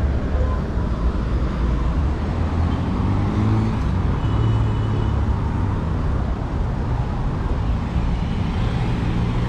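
City road traffic: cars and other motor vehicles driving past, a continuous low engine and tyre rumble.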